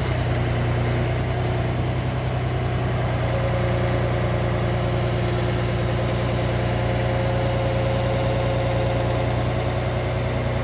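Mini excavator's diesel engine running steadily at an even speed while its arm holds a suspended load.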